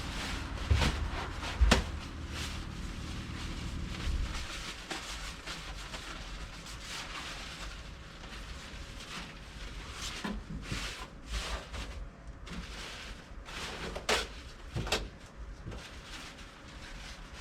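Workshop handling noises: scattered clunks, knocks and rustling, with a low steady hum that stops about four seconds in.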